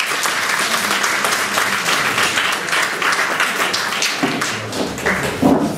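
Audience applauding: a dense, steady run of many hands clapping.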